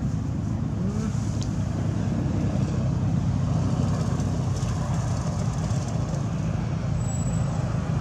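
Steady low rumble of an engine running without let-up.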